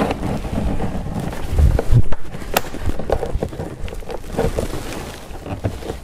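Plastic trim tools prying at the edge of a BMW F10 5 Series rear door panel, scraping and knocking against it, with dull thumps a little before two seconds in and a sharp click about half a second later. The panel's clips are extremely tight and hold.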